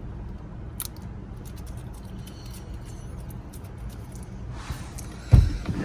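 Light clicks and rustling from handling small parts over a steady low hum, then a single loud thump near the end.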